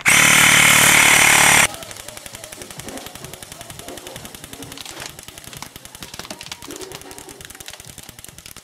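An airsoft rifle firing a long full-auto string: a fast, steady rattle of shots. It opens with a loud harsh blast lasting about a second and a half.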